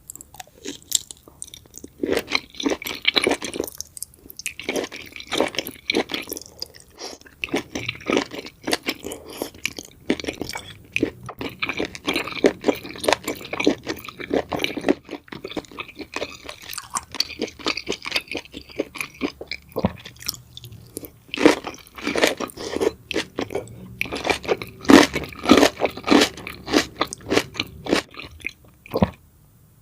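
Close-miked mukbang eating: seafood being chewed with mouth-open crunching and wet smacking, a dense run of rapid clicks with a few short pauses.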